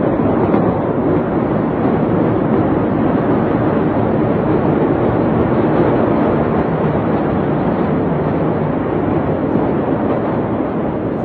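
Steady, loud rushing noise recorded on a phone, even throughout with no distinct bangs or crackles.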